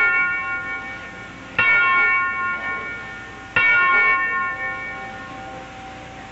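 A rope-pulled school bell tolling in single, evenly spaced strokes about two seconds apart, each ringing on and fading away. Two fresh strokes land about one and a half and three and a half seconds in, and the last one rings out slowly.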